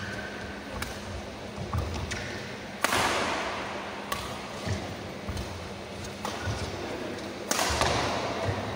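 Badminton rally: sharp racket strikes on the shuttlecock a second or two apart, with low thuds of players' feet on the court. Two much louder strikes, about three seconds in and near the end, are each followed by echoing noise in the hall.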